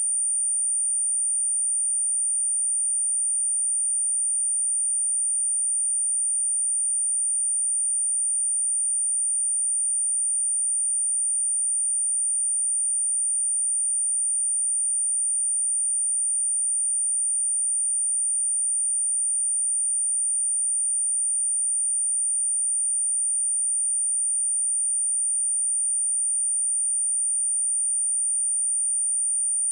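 A pure 9062 Hz sine-wave test tone, a single steady high-pitched note held without change.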